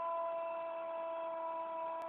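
A TV football commentator's long, held goal cry, one unbroken note on a single pitch, over faint crowd noise.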